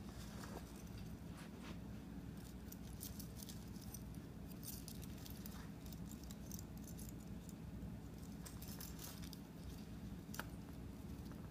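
Steel chain of a homemade crampon clinking and rattling as it is handled, in scattered bursts of small metallic chinks, with one sharper click about ten seconds in, over a steady low hum.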